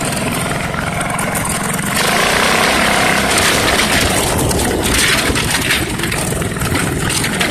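Off-road go-kart's small engine running as the kart drives over a bumpy dirt trail, the noise growing a little louder about two seconds in.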